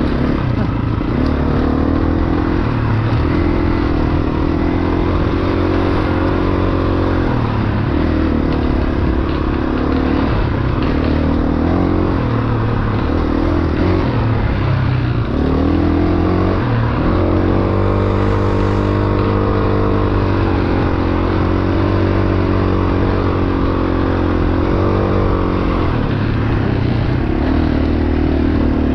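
Dirt bike engine running hard on a single-track trail, revving up and falling back again and again as the rider works the throttle.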